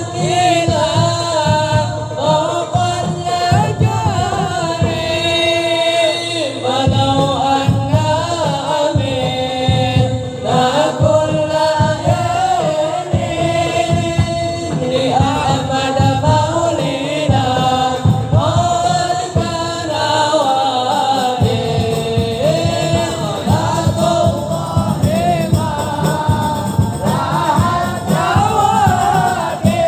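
A man singing an Arabic sholawat, a devotional song praising the Prophet, in a high register through a microphone and loudspeaker, with other voices joining in. Hand drums keep a steady rhythm beneath the voice.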